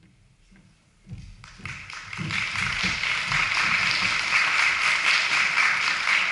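Audience applauding: a few scattered claps at first, swelling to full, steady applause about a second and a half in.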